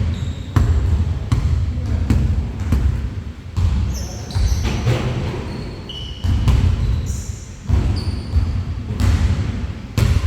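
Basketball being dribbled and bounced on a hardwood gym floor during a game, irregular sharp thuds, with short high squeaks of sneakers on the court now and then.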